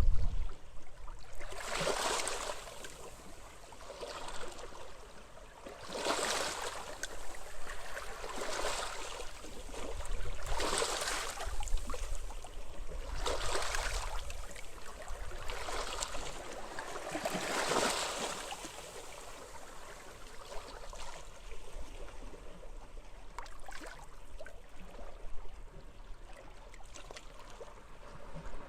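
Small sea waves washing in on a beach, one wash every two to three seconds, weaker in the second half, over a low rumble of wind.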